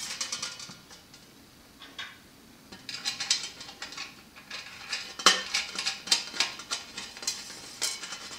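Small metal parts clicking and clinking against a steel light-fixture plate as a lock nut is turned by hand onto a threaded nub. The clicks come irregularly, sparse for the first few seconds and busier from about three seconds in.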